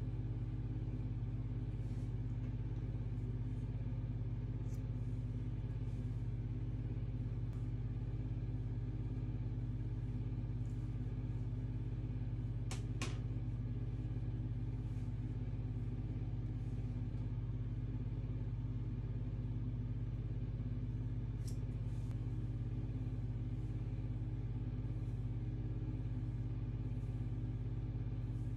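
Steady low hum that holds even throughout, with a few faint clicks, the clearest a quick double click about 13 seconds in.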